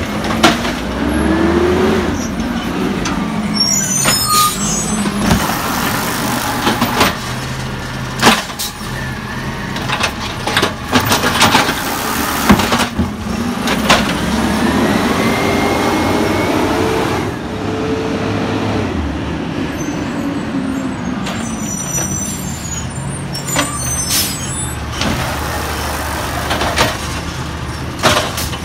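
Peterbilt 320 automated side-loader garbage truck's compressed-natural-gas engine running, revving up and back down to drive the hydraulic arm as it lifts and dumps a cart, once briefly about a second in and again for several seconds in the middle. Sharp bangs from the cart and arm come at intervals.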